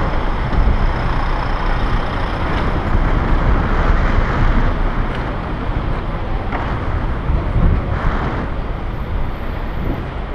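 Wind rushing over the microphone of a camera on a moving bicycle, a steady low rumble, with city traffic noise underneath.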